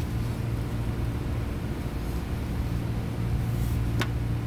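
Steady low mechanical hum of machinery running in the background, with a single sharp click about four seconds in as the plastic timing belt cover is worked into place.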